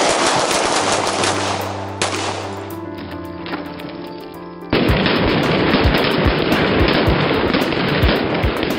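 Loud background music with held bass notes. About five seconds in it suddenly gets louder and denser, with repeated heavy low thumps.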